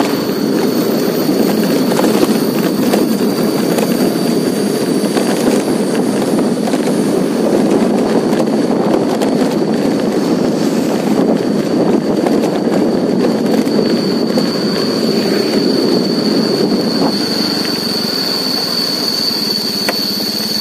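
Motorcycle ride on a narrow road: steady engine, road and wind noise, with a steady high-pitched whine above it that grows louder near the end.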